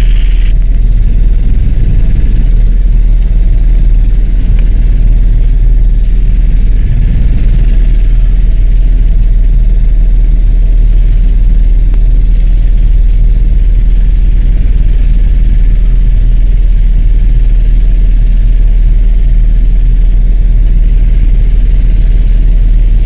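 Helicopter cabin noise in cruise flight, heard from inside the cabin: a loud, steady low drone of rotor and engine, with a faint steady whine above it.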